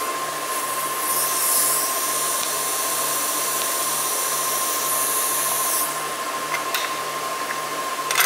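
TIG welding arc on thin titanium sheet: a steady high hiss-buzz starts about a second in and stops just before six seconds. A constant high tone sits under it throughout, and a few light clicks follow near the end.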